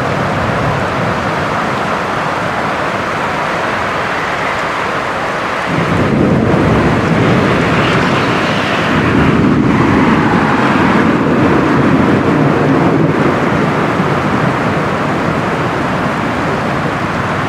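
Heavy rain pouring steadily during a thunderstorm, with a low thunder rumble coming in about six seconds in and swelling around ten seconds.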